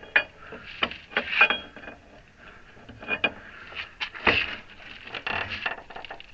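Irregular metallic clinks, knocks and scrapes of a tire iron against steel parts as it is used to lever a part into a hydraulic ram, with a short ring after some of the strikes.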